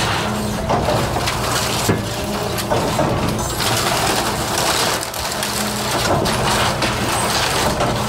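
Excavator bucket crushing and breaking up wooden house-framing debris, with irregular cracks and crunches of splintering lumber. The 40,000-pound excavator's diesel engine runs steadily underneath.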